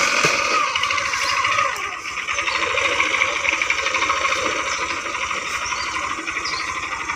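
Small single-cylinder commuter motorcycle engine running at idle, a steady rapid chugging.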